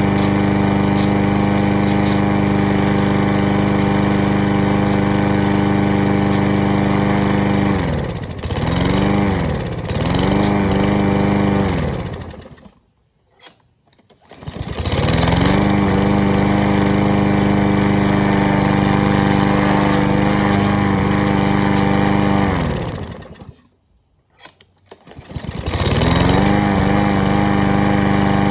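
Small lawn mower engine running steadily, then its speed sags and recovers twice before it dies about twelve seconds in. It starts again and runs steadily, dies a second time a little past halfway, then restarts, dipping and recovering in speed near the end.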